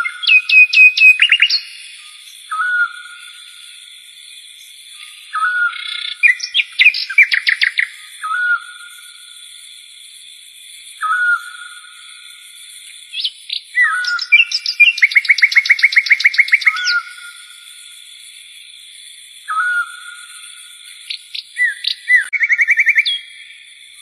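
A songbird singing in repeated phrases: a short swooping whistled note every couple of seconds, broken by four bursts of fast trilled notes. Underneath is a faint, steady high-pitched drone.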